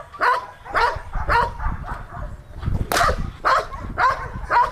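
A Belgian Malinois on a leash barking aggressively in quick succession, about two barks a second, with one harsher bark about three seconds in.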